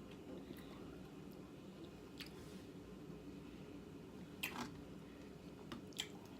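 A person eating close to the microphone: faint chewing with a few short, sharp wet mouth clicks, about two, four and a half and six seconds in, over a low steady hum.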